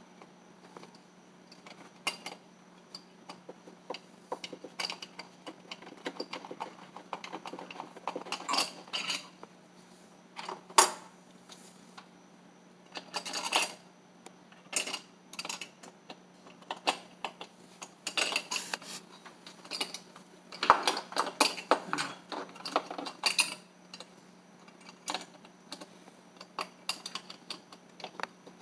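Hand screwdriver working at a metal window frame: irregular metallic clicks, clinks and short scrapes, with one sharp click about eleven seconds in.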